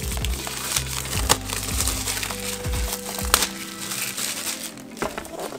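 Clear plastic shrink wrap crinkling and crackling as it is peeled off an album box, with sharp snaps about a second and a half in and again past three seconds. Background music plays underneath.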